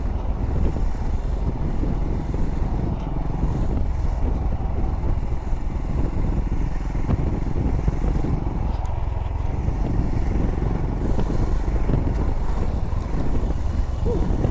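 Royal Enfield Himalayan's single-cylinder engine running steadily at low speed, a continuous low rumble.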